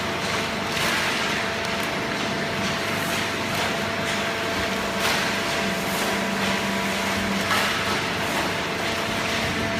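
Hydraulic baler running on paper: a steady machine hum with constant whining tones, broken by a few short rustling or knocking noises.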